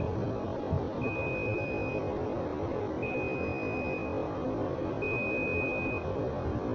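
Electronic beeper sounding a steady high tone about one second long, repeating every two seconds, over a constant low background rumble.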